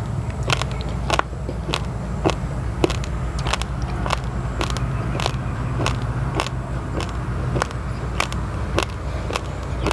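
Raw basmati and glutinous rice grains being chewed close to the microphone: crisp crunches coming evenly, almost twice a second, over a steady low hum.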